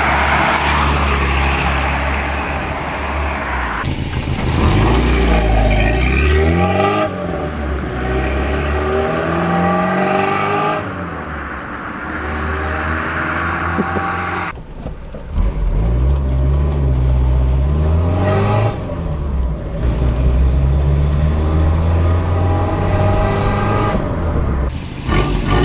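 Car engine exhaust through a homemade straight-through muffler, revved up and let fall back to idle several times. About halfway through, the sound turns duller, with less treble.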